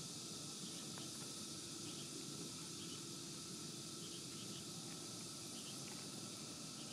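Pull-ring colour smoke grenade burning with a steady, faint hiss. A few faint ticks sound over it.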